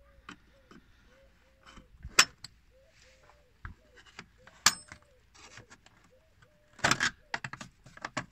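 Nut driver clinking and tapping against the metal clamps and screws of a Suzuki Jimny's air filter housing: a few sharp metallic clicks, one with a brief ring, and a quick cluster of clicks about seven seconds in. Faint short squeaks sound in between.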